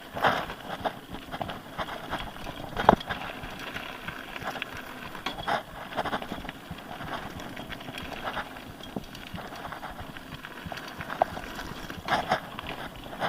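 Mountain bike ridden fast over a rough trail: steady tyre rumble and rattling of the bike, broken by sharp knocks from bumps, the loudest about three seconds in.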